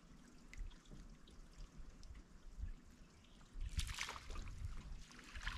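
Small waves lapping and trickling against a bass boat's hull, with wind rumble, and a louder splash at the water's surface about three and a half seconds in.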